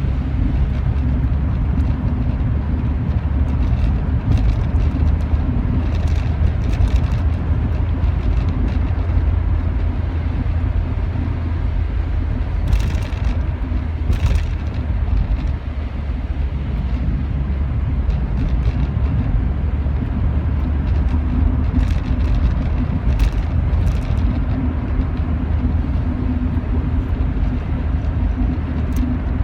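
A Rover 45 driving along, its engine and road noise a steady low rumble, with a few short sharp clicks scattered through.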